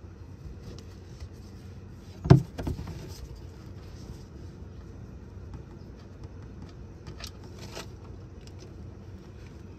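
Tool and oil drain plug knocking under a car while the plug is worked loose: one sharp knock about two seconds in, a smaller one just after, and a few faint clicks later.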